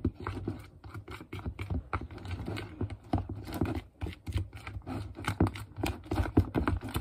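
A utensil stirring slime mixture in a plastic mixing bowl, with quick, irregular scraping and tapping against the bowl's sides.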